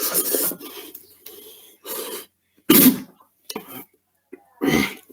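A person coughing in a string of about five coughs, the loudest a little under three seconds in: a coughing fit brought on by choking on spicy fiery beef ramen noodles.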